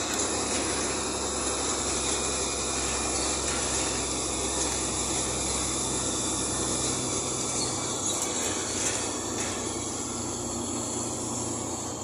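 Bus engine and tyre noise heard from inside the cabin on the move: a steady rumble under a broad road roar and a high hiss, the deepest rumble easing a little in the second half.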